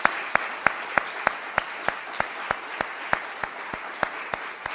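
Audience applauding to welcome a speaker, with one clapper close to the microphone standing out in sharp, even claps about three a second.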